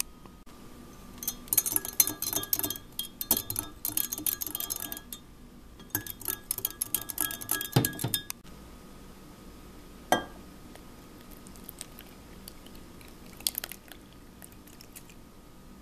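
Metal utensils clinking rapidly against glass while mixing pancake batter, in two bursts of a few seconds each, with the whisk in a glass measuring cup. A single sharp knock comes about ten seconds in, then only a few faint clicks.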